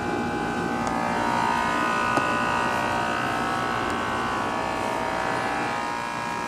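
Rebuilt Tecumseh engine of a Sears LT1036 lawn tractor running steadily with a buzzing drone, its pitch wavering slightly.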